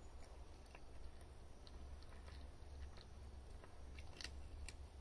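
Cat chewing dry kibble from a plastic bowl: faint, irregular crunches and clicks, a few louder ones near the end, over a steady low hum.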